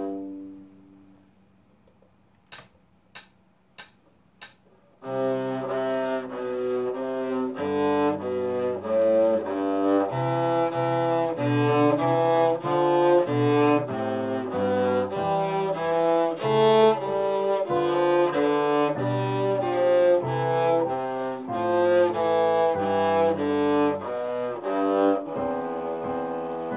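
Solo cello: a held bowed note dies away, then after a short pause with four sharp, evenly spaced clicks about 0.6 s apart, a steady run of bowed notes begins about five seconds in and carries on, the notes changing every fraction of a second.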